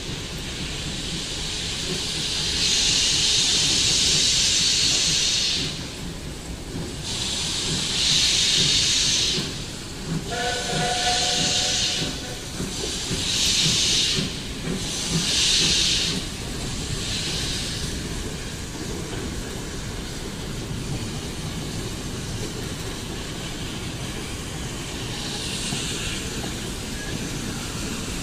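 Steam locomotive hissing out steam in a series of loud blasts, each a second or two long, over a steady low rumble as it moves slowly. A short whistle toot sounds about ten seconds in, and a fainter hiss comes near the end.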